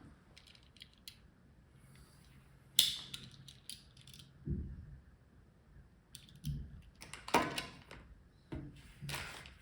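Hands handling a small die-cast toy car and its box and plastic packaging: scattered light clicks, a sharp snap about three seconds in, then several short rustles of plastic.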